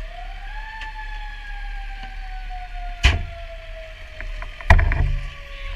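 A motor-like whine rises quickly, then slowly winds down in pitch over several seconds, like a machine coasting to a stop. Hard clunks of equipment being handled at a fire engine come about three seconds in and again near the end, over a low steady rumble.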